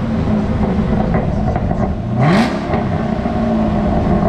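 2020 Camaro ZL1's supercharged 6.2-litre LT4 V8 with its secondary catalytic converters deleted, idling and blipped once about two seconds in: the revs climb sharply and drop straight back to idle.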